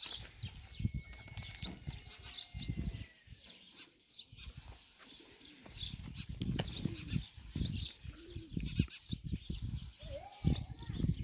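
Birds chirping with a few dove coos near the end, over intermittent aerosol spray-paint hiss that comes in stretches of a second or more with short gaps.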